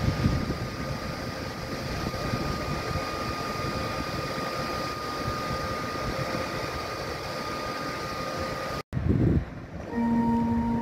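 Siemens Taurus electric locomotive of an ÖBB Railjet standing still, its cooling blowers and power electronics running with a steady hum and a thin, steady whine. Just before nine seconds in the sound cuts off abruptly, and near the end steady musical notes begin.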